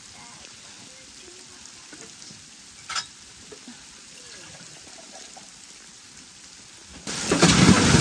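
Freezing rain and snow pattering on tent fabric, then about seven seconds in a sudden loud crashing rush that lasts a couple of seconds: the storm damaging the tent set-up.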